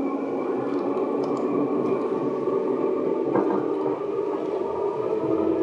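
Seibu 10000 series electric train running: a steady rumble of wheels on rail under a hum of several steady tones from the running gear, with a brief click about three and a half seconds in.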